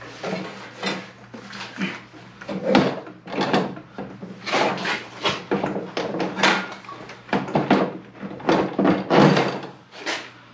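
Irregular metal knocks and clunks as a Predator 305cc engine is set down on a snowblower's steel deck and shifted onto its mounting studs, over a steady low hum.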